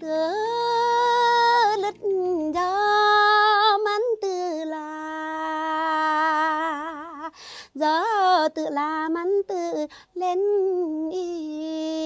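A woman singing a Li folk song of welcome, unaccompanied, in several phrases of long held notes with a wavering vibrato and short breaths between them; the last note is held long near the end.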